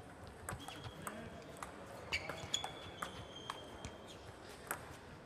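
Table tennis ball clicking sharply in a rally, bouncing on the table and struck by paddles several times. A few high squeaks come in about two seconds in and last for about two seconds.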